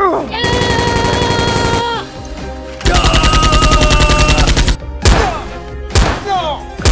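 Two long bursts of rapid automatic gunfire sound effects, the second louder, then three single heavy shots about a second apart, each trailed by a falling whoosh, with background music underneath.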